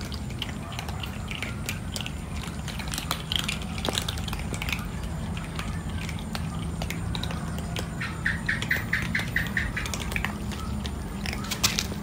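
Many cats eating dry kibble: a dense scatter of small, crisp crunches, over a steady low rumble. About eight seconds in, a brief run of rapid high chirps.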